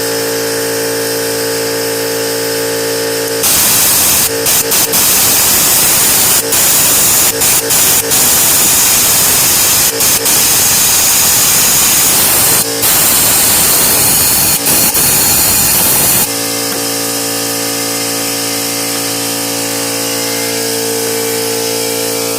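A tool running in one long stretch of about thirteen seconds, a loud hiss that stops for a moment several times, over a steady hum, during spark plug removal on a misfiring truck engine.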